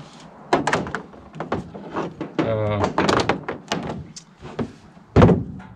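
Clatter of hands-on work at a pickup truck: a run of clicks and knocks, then one heavy thunk about five seconds in, like a door or hood shutting.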